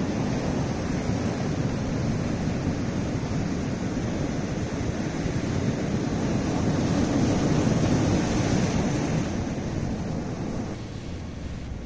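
Sea surf breaking and washing over a rocky shoreline, a steady rushing that swells to its loudest about seven or eight seconds in and ebbs near the end.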